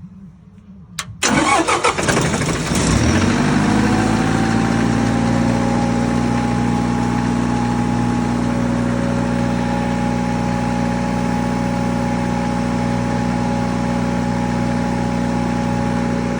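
Generac diesel generator engine starting: a click about a second in, then it cranks and catches at once, rising to speed over a couple of seconds and settling into steady running.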